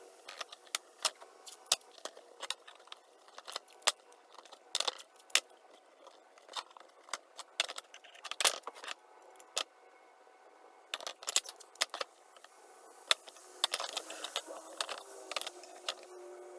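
Irregular sharp metallic clicks and clinks, a few a second, like metal parts being handled and knocked together, with a busier cluster near the end.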